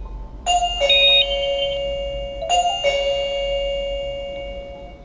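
Electronic doorbell chime playing a two-note ding-dong, falling in pitch, twice about two seconds apart. Each note rings on and slowly fades.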